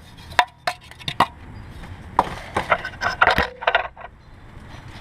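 Scattered sharp clicks and light knocks of a small plastic vent tube being worked off the alternator by hand, in two clusters, the second from about two to four seconds in.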